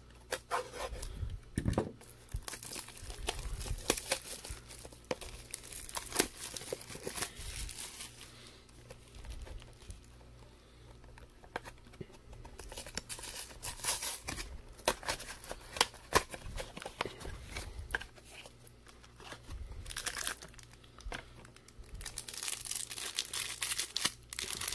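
Shrink-wrapped Magic: The Gathering Double Masters VIP pack being opened by hand: the plastic wrap crinkles and tears in irregular bursts of crackling, with rustling of the packaging in between.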